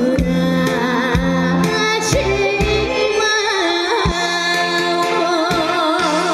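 Live trot music: a steady drum beat under a melody of held notes with vibrato.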